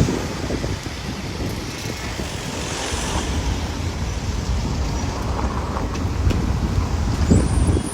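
Off-road car driving: a steady rumble of engine and road noise.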